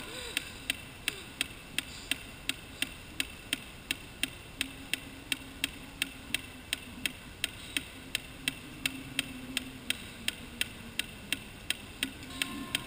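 Steady, even ticking, about three sharp clicks a second, with a faint low hum coming in about four seconds in.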